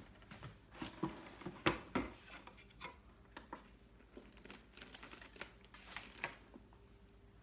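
Handling noise from a leather handbag being moved and lifted by its handles: irregular rustling with light knocks and clicks, loudest about one to two seconds in.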